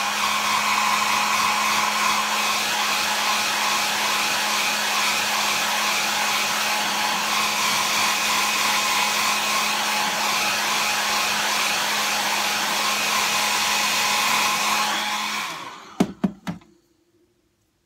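Handheld hair dryer blowing steadily to dry wet paint, with a steady hum and whine under the rush of air. About fifteen seconds in it is switched off and winds down, followed by a few quick knocks.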